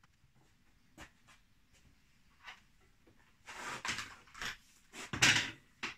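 Handling noise at a workbench: a few light clicks, then scraping and rustling, with a heavier knock a little over five seconds in.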